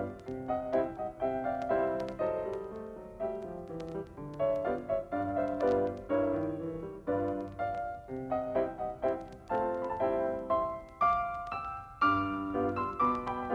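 Piano music, a continuous stream of short struck notes and chords, as a silent-film accompaniment.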